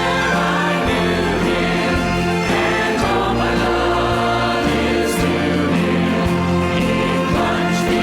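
Church worship music: a band accompanying many voices singing together, at a steady level.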